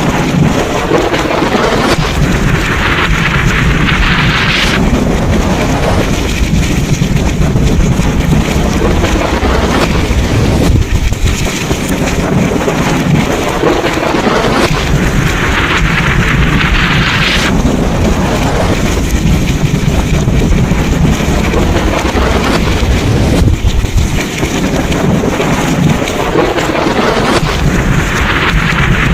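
Thunderstorm: steady heavy rain and wind over a continuous low thunder rumble. A brighter hiss of rain swells for about three seconds, three times at even spacing.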